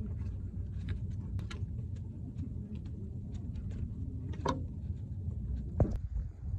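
Scattered light clicks and taps as a hand tool and gloved hands work the bolt loose and pull the exhaust camshaft position sensor out of the engine, with a sharper tick about four and a half seconds in and another near six seconds, over a steady low rumble.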